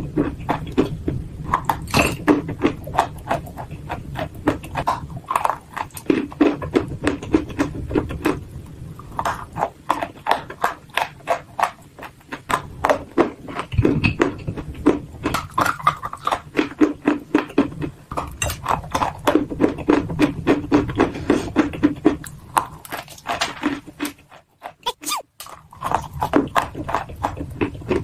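Dry clay chunks being bitten and chewed: a fast, uneven run of sharp crunches, with a brief pause near the end.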